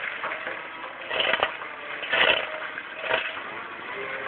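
Gehl skid-steer's asphalt milling attachment grinding into road asphalt, with three louder crunching bursts about a second apart over the machine's steady running.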